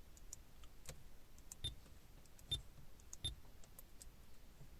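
Sony XAV-1500 car stereo giving short, faint touch-screen beeps as the screen is tapped, three of them a little under a second apart, each with a soft tap, and scattered faint clicks between.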